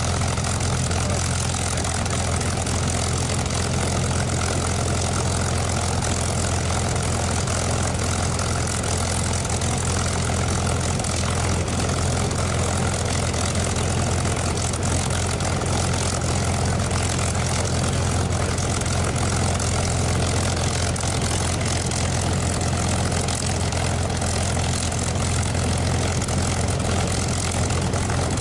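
P-51 Mustang's Packard Merlin V-12 engine idling steadily on the ground with its propeller turning, a deep, even drone that does not change in pitch or level.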